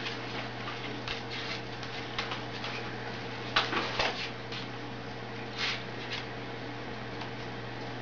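A white cockatoo's beak and claws tapping and scratching on a wooden tabletop as it pecks, in scattered short taps, the loudest a cluster of two about halfway through. A steady low hum lies underneath.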